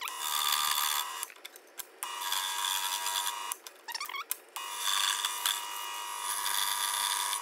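Scroll saw blade cutting through a wooden workpiece with a steady high buzz, in three spells with two short breaks between them.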